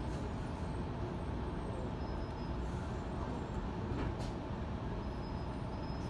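Steady rumble of a Sydney Trains electric suburban train running through an underground station, heard from inside the carriage, with a faint click about four seconds in.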